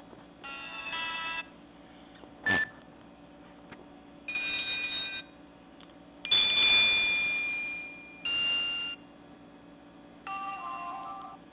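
Nokia E5 ringtones played one after another through a Nokia 130 phone's small loudspeaker: five short electronic tones, each different, about two seconds apart, the loudest about six seconds in ringing and fading. A sharp click sounds between the first two tones.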